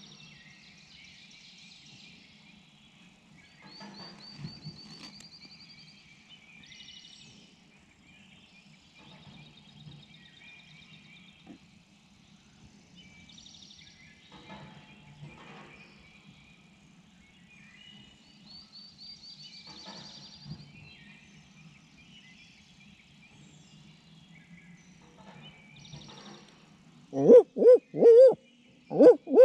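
An owl hoot locator call, given close by to make a turkey gobble, sounds near the end as a loud series of hooting notes with a long drawn-out falling last note, in the rhythm of a barred owl. Before it, songbirds sing faintly over a steady low hum from a pump jack working at a nearby well.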